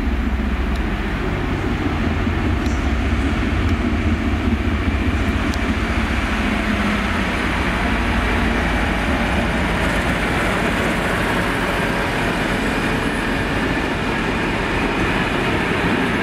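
Class 56 diesel locomotive passing close by, its Ruston-Paxman V16 engine giving a heavy low drone, followed by loaded timber wagons rolling past with a steady rumble of wheels on rail.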